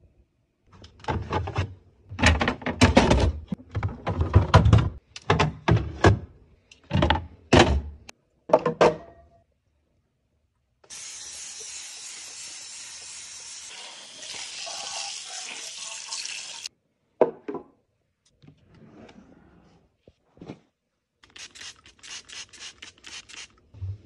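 Clear plastic fridge bins and containers being handled and set down, a run of knocks and clatters. Then a kitchen tap runs water over the bins in the sink for about six seconds, and near the end there is a quick series of light scrubbing strokes.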